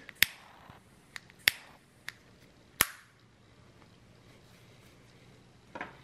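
Small flip-top torch lighter's piezo igniter clicking sharply about five times over the first three seconds, with a faint hiss after the first click.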